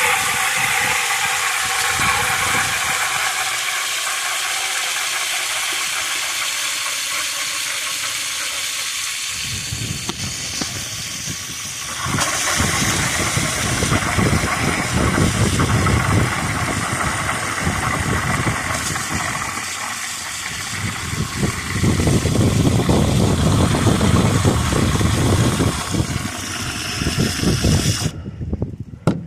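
Water running steadily into a cat's water dish, cutting off suddenly near the end. Wind buffets the microphone in gusts, adding a heavy rumble partway through and again later.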